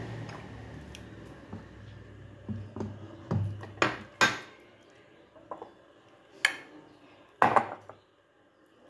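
Ceramic bowl and utensils knocking and clinking a handful of times as food is set into the bowl, the loudest knocks about four and seven and a half seconds in. A low hum fades away over the first few seconds.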